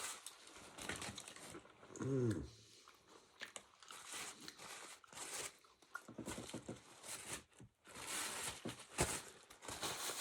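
A person chewing and biting food close to the microphone, with crunching, wet mouth noises and a short falling vocal sound about two seconds in.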